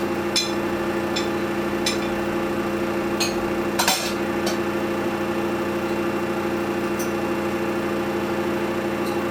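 Samsung washing machine running with a steady hum, with about eight irregular sharp clicks and knocks, the loudest about four seconds in, as the trainers tumble against the drum.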